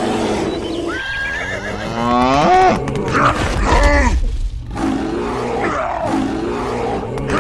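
Whinny-like animal cries, dubbed sound effects for a toy dinosaur. A call rises in pitch in the first few seconds, then more cries follow.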